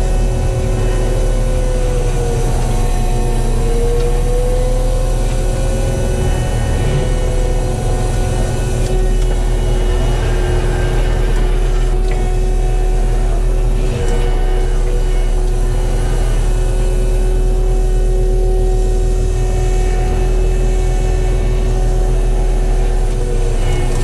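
Kubota SVL95 compact track loader's diesel engine running a Promac HSM60 drum mulcher under load, heard from inside the cab: a steady low drone with a held whine over it that sags briefly in pitch a few seconds in, as the drum grinds brush and stems at ground level.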